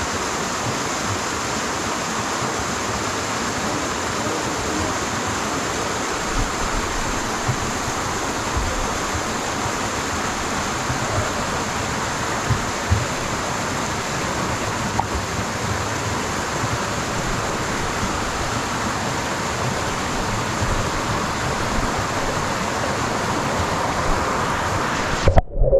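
Steady rush of falling water from a waterfall, cutting off abruptly just before the end.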